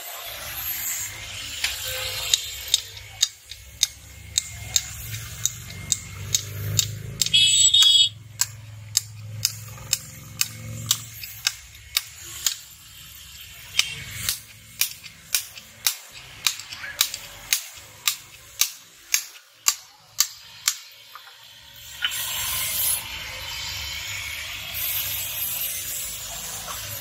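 Repeated sharp metallic taps, about two or three a second, on a billhook blade resting on a sledgehammer head used as an anvil, with one brief metallic ring about eight seconds in. The taps stop a little after twenty seconds, giving way to a steady rubbing noise.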